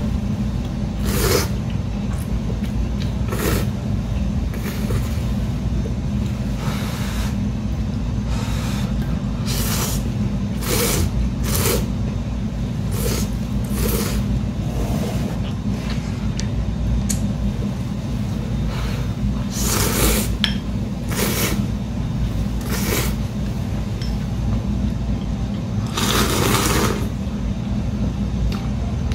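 A woman slurping ramen noodles in short, repeated slurps every second or two, with one longer slurp near the end, over a steady low hum.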